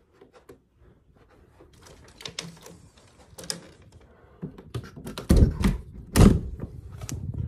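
Clicks and knocks of an interior door being handled and opened, with two heavy thumps about five and six seconds in.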